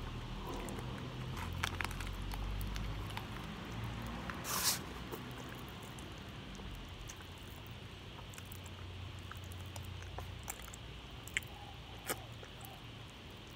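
Faint wet mouth sounds of licking and sucking powdered candy, with scattered small clicks and one short, loud rustling burst about four and a half seconds in.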